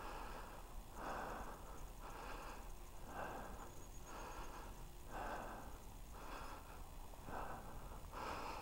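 A man breathing hard and fast in rapid, regular breaths, the excitement just after shooting a buck with a bow.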